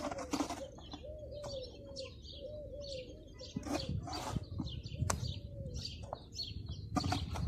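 A dove cooing over and over in a low repeated call, which stops about five seconds in, with small birds chirping higher up. Scattered scrapes and knocks of a trowel scooping mortar from a bucket.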